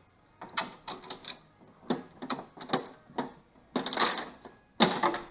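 Coin-operated vending machine, a converted tampon dispenser, being worked: a run of mechanical clicks and clunks, louder near the end, as its coin mechanism dispenses a prize.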